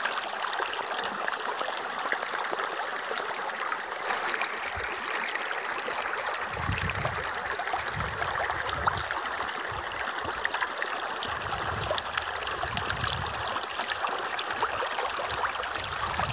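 A thin stream of water from a small hose splashing steadily onto plastic toy animals and into a soapy puddle.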